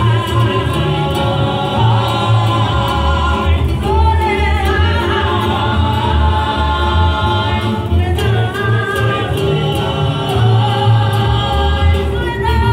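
A rondalla, a Mexican ensemble of guitars and voices, performing a song live: voices singing in harmony over strummed guitars and deep bass notes, with a woman's voice out front.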